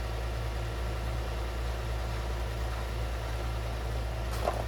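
Car engine idling, a steady low hum from inside the cabin, with a brief faint click near the end.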